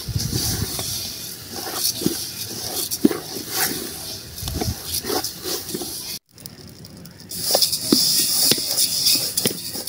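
Sesame seeds roasting in a metal pot, stirred with a wooden spoon: a rustling, scraping hiss of seeds sliding against the pot, scattered with many small pops and ticks. The popping shows the seeds are nearly done roasting.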